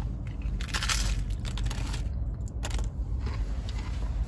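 A bite into a hard-shell Taco Bell taco, then chewing: the crisp fried corn shell cracks in several short crunches, the loudest about a second in.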